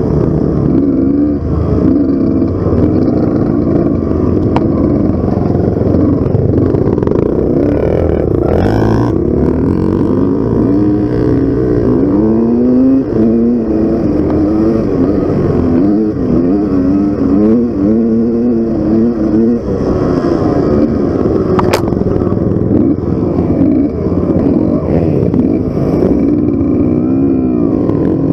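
Dirt bike engine heard up close from a camera mounted on the bike, revving up and down continuously as it is ridden along a dirt trail. A short clatter comes about nine seconds in.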